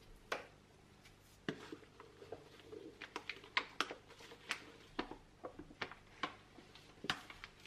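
Irregular sharp crinkles and taps of a paper flour bag being handled and tipped into a tall glass jar. Near the start there is a knock of a wooden spatula against a glass mixing bowl.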